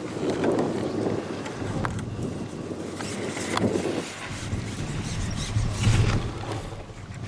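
Wind buffeting the microphone over small waves lapping at the lake's edge, an uneven rumbling noise with a few faint clicks.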